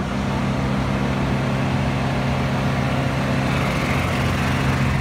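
Steady engine drone: a low hum holding one pitch at an even level, over a hiss of outdoor noise.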